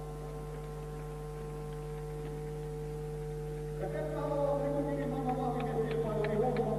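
A steady electrical mains hum runs under an old tape recording. About four seconds in, music or singing comes in over it, with a few sharp clicks.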